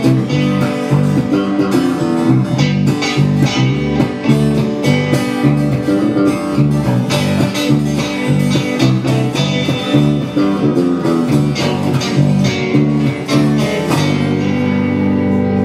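Live acoustic guitar strumming over an electric bass line, an instrumental passage with no singing; in the last second or two a chord is left ringing.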